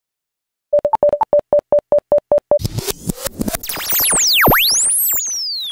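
Synthesized logo-intro sound effect: a quick run of about a dozen short electronic beeps, then a loud whoosh full of sweeping synth tones that rise and fall across each other.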